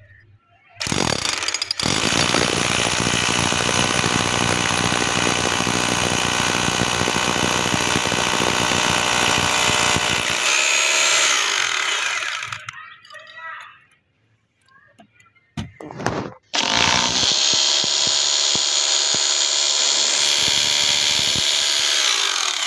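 Corded electric drill boring into concrete through a steel mounting bracket. It runs for about eleven seconds, stops, gives a couple of short trigger blips, then runs again for about six seconds. Its pitch rises near the end of the first run.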